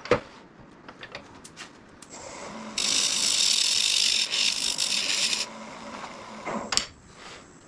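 A few knocks as the box lid is taken off the piece, then the wood lathe starts about two seconds in and a turning tool cuts the spinning tenon for about three seconds with a loud hissing scrape. It is a light trimming cut to fit the tenon to the lid. The cut stops, the lathe keeps running, and there is a clunk near the end.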